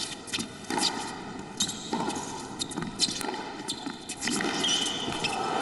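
Tennis rally: a tennis ball struck by rackets and bouncing on the court, a run of sharp pops roughly a second apart.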